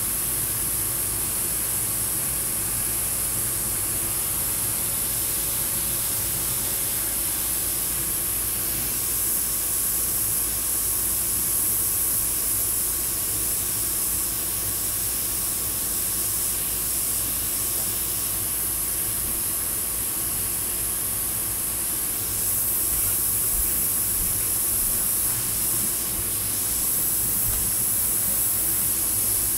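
Harbor Freight double-action, suction-feed airbrush spraying paint in a steady, high hiss of air, swelling slightly a few times, over a steady low hum.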